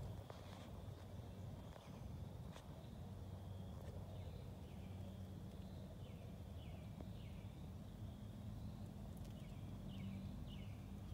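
Faint bird calls: short chirps that drop in pitch, in twos and threes every couple of seconds, over a low steady background hum.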